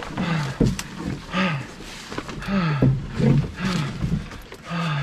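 A man's short grunts of exertion, each falling in pitch and coming about two a second, with heavy breathing between them, as he carries a canoe and pack through brush on a portage.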